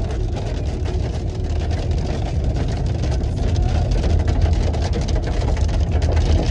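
Hail and heavy rain pelting the roof and windshield of a moving car, heard from inside the cabin as a dense, fast clatter of small hits over the steady low rumble of the engine and tyres. The stones are big enough that the occupants fear they will crack the glass.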